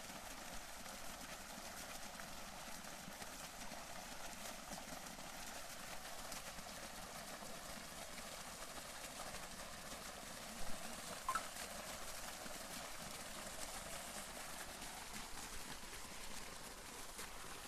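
Water from an irrigation pump gushing up out of an outlet pipe and splashing into a muddy field channel, a steady rushing splash. Two short knocks come about ten and eleven seconds in.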